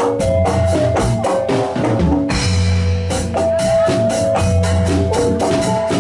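Javanese gamelan music for jathilan: struck bronze metallophones ringing over a steady beat of drums. A hissing crash comes in about two seconds in and lasts about a second.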